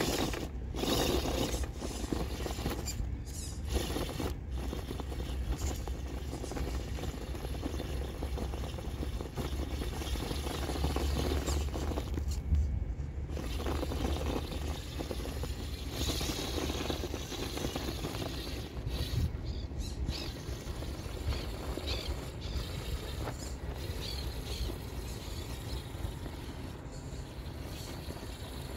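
RC rock crawler's brushless 1200kv motor and geared drivetrain whining steadily as it crawls slowly up a loose dirt slope, its tyres scrabbling in the dirt.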